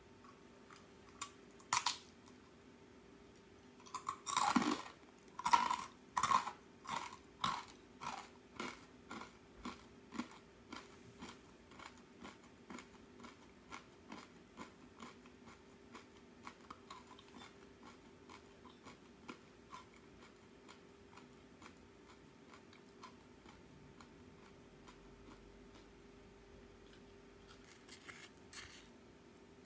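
A crisp arare rice cracker bitten and chewed close to the microphone. A few loud crunches come about four seconds in, then steady chewing crunches just under two a second that fade gradually, with a few brief crackles near the end.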